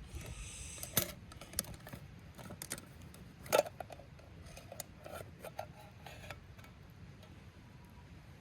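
Scattered light clicks and knocks from handling things, the loudest about a second and three and a half seconds in.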